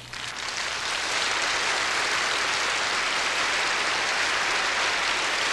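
Studio audience applauding, swelling over the first second and then holding steady.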